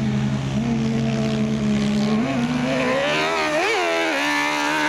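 Kart cross engine running hard on a dirt track. About halfway through its pitch climbs sharply as it revs up, with a brief rev spike, then it holds a high, steady note.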